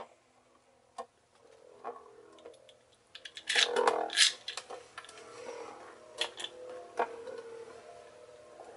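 Beyblade Flash Sagittario 230WD spinning in a plastic stadium: a few light clicks, a brief rattling clatter a few seconds in, then a faint steady spinning hum with occasional ticks as the top wobbles on the stadium floor.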